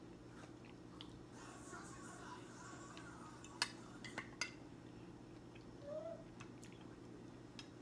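Metal fork and spoon clinking against a plate and a glass serving dish while eating, with a few sharp clinks about three and a half to four and a half seconds in, over a low steady hum.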